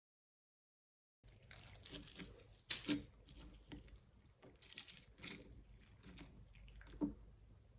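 Complete silence for about a second, then faint irregular clicks, taps and rustling, with a couple of sharper knocks, as things are handled in a small room.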